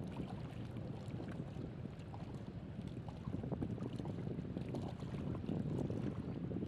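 Shoreline ambience: a low, steady rush of wind and water, a little louder from about three seconds in.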